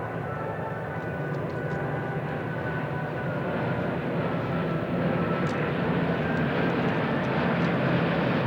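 Piston-engined vintage warbirds flying past, their propeller engine drone growing steadily louder as they approach.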